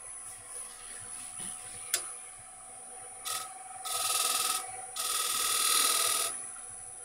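Wood lathe running with a steady faint whine while a tool is pressed to the spinning wood of a plate blank in three hissing, scraping passes. The longest and loudest pass comes near the end and lasts over a second, with a sharp click shortly before the first pass.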